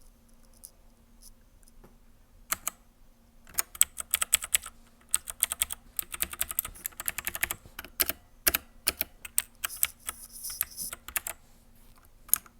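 Keystrokes on a Royal Kludge RK71 mechanical keyboard with clicky blue switches: a couple of presses about two and a half seconds in, then a run of quick clicks lasting about eight seconds, and two more presses near the end.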